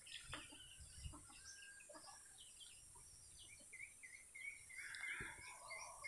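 Faint chirping of small songbirds, many short high notes; from about four seconds in one bird repeats a short call about three times a second, and a louder call comes near the end.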